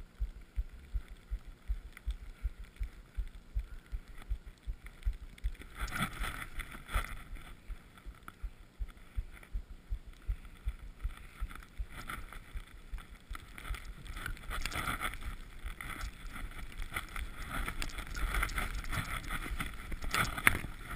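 Skis running through fresh powder snow with a hiss that comes in about six seconds in and grows louder toward the end, over wind buffeting the microphone in low gusts.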